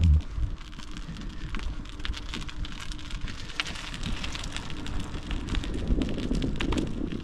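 Bicycle rolling over gritty concrete, its tyres crackling over grit and debris with a low rumble underneath, after a heavy thump right at the start.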